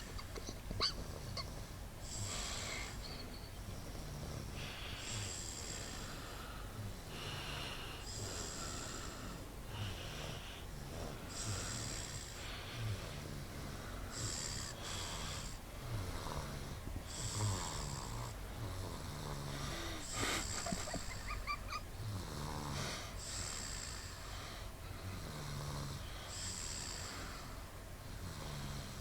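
Snoring in a slow, even rhythm, about one breath every three seconds, each breath with a hissing, rasping edge.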